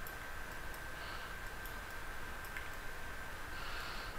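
Faint, scattered computer mouse clicks over a steady background hiss with a thin, steady high-pitched whine.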